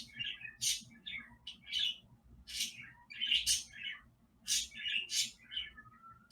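Small birds chirping: a rapid, irregular series of short, high chirps, about two a second.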